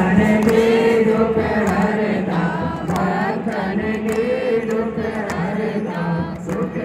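A group of voices singing a Navratri devotional chant together, with long held, gently wavering notes. Sharp taps keep time about twice a second.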